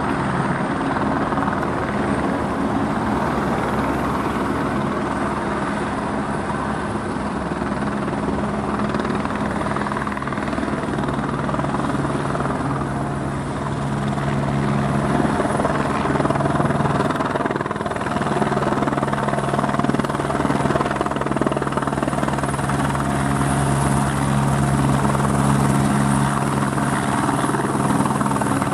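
Airbus H125 (AS350 B2 Écureuil) single-engine helicopter hovering low, its turbine and rotors running with a steady drone and blade beat. It gets somewhat louder about halfway through as it turns toward the listener.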